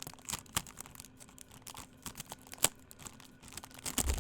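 Plastic packaging crinkling and rustling as it is handled, with scattered irregular clicks. A loud thump comes near the end.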